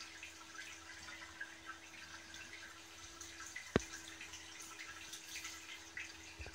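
Reef aquarium water circulating: a faint, steady trickling and bubbling with many tiny crackles, over a low steady hum. One sharp click about four seconds in.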